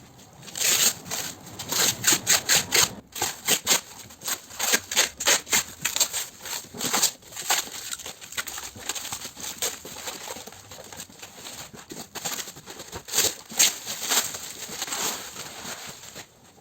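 Cooler trolley's packaging being opened by hand: cardboard and plastic wrapping rustling, crackling and scraping in a dense, irregular run of sharp crackles.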